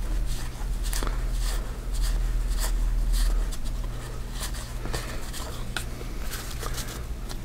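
Stack of 1987 Topps baseball cards thumbed through by hand: irregular soft flicks and snaps of cardboard as the cards slide past one another, over a steady low hum.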